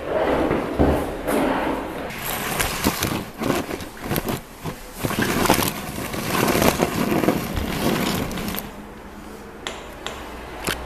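Caster wheels of a wooden rolling board rumbling and scraping over a bare concrete floor, with knocks and clatter mixed in. The rolling dies down about nine seconds in, leaving a few sharp clicks.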